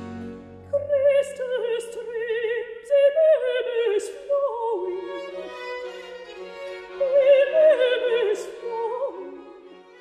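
Classical music: a high operatic voice, likely a soprano, sings a melody with strong vibrato over quiet string accompaniment. It fades away near the end.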